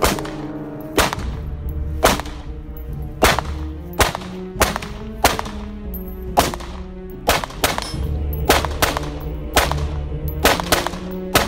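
Semi-automatic rifle fire from an AR-15-style rifle: about twenty sharp shots in irregular strings, many as quick pairs, over background music.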